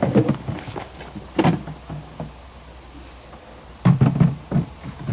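Hollow plastic hull sections of a Pakayak nesting kayak knocking and bumping as one section is lifted and seated on top of another: a few dull thuds, the loudest cluster near the end.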